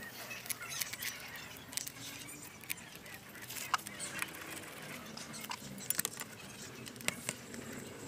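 Light metal clicks and taps, irregular and scattered, as the Yamaha R15's oil filter cover and its small bolts are handled and fitted to the engine case by hand.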